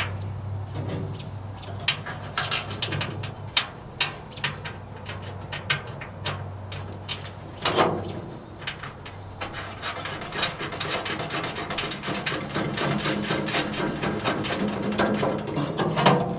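Small metal clicks and taps of screws, nuts and a steel shelf bracket being fitted to the side of a pellet grill by hand. In the second half the clicking becomes quick and dense, like screws and nuts being worked in.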